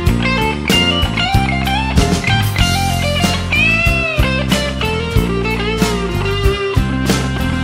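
Background music: a song with a steady drum beat and a melodic line.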